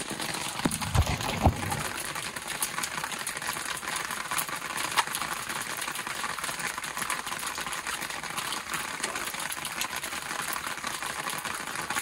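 Rain pattering steadily on an umbrella overhead, a dense hiss of small drop ticks, with a couple of low thumps about a second in.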